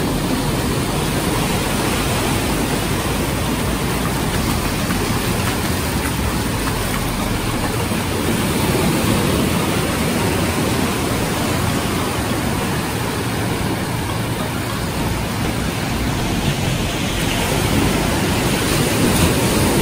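Steady rush of small sea waves breaking and washing up the shore.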